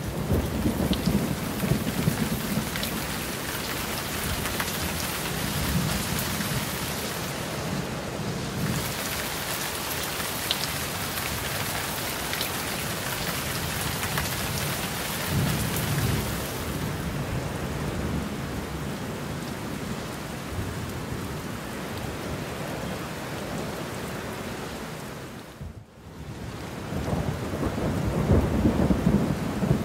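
Steady heavy rain hiss with four low rolls of thunder: one at the start, two in the middle and the loudest near the end. The sound drops out briefly just before the last roll.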